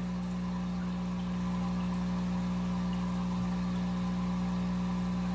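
Steady low electrical hum of running aquarium equipment in a fish room, one unchanging drone with a few higher overtones.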